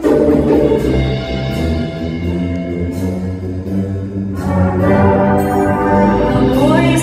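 Massed concert band of brass and woodwinds coming in together loudly on a held chord. It moves to a new, fuller chord about four and a half seconds in.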